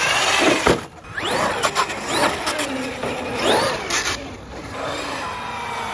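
Traxxas X-Maxx 8S brushless RC monster truck motor revving up and down about four times, its whine rising and falling in pitch, with a few sharp knocks. Near the end, a steady scraping as the truck's rear skid buttons drag on the tarmac.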